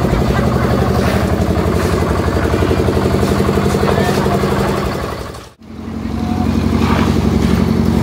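Engine of a portable drum concrete mixer running steadily with a fast, even chug, under the voices of workers. The sound drops out abruptly for a moment a little past halfway, then picks up again at the same steady running.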